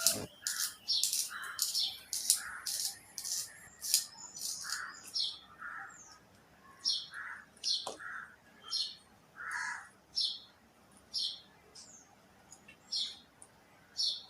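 A pencil being turned in a handheld pencil sharpener: a steady run of short, high scraping squeaks as the blade shaves the wood. The strokes come about twice a second at first and slow to about one every 0.7 s later. Near its end the pencil is worn too short to give any more shavings.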